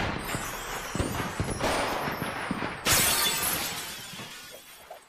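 Crash sound effect at the end of a music track, after a countdown: a noisy, shattering clatter, then a sudden loud crash about three seconds in that slowly dies away.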